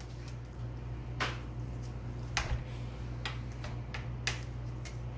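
Pizza cutter wheel rolling and scraping on a metal sheet pan as it cuts through a tray of cheese-topped slider patties, with several sharp clicks about a second apart.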